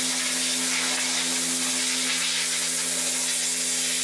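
RhinoSpray Model 1500A heavy-duty pressure washer blasting a jet of water against a screen-printing screen in a washout booth to strip the emulsion: a steady hiss of spray with the electric pump's steady hum underneath.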